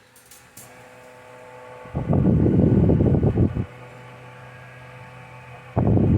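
Holmes Blizzard desk fan running on high with a steady hum while it oscillates, with a couple of light clicks at the start. Its airflow sweeps across the microphone in two loud bursts of wind rumble, one about two seconds in and one near the end.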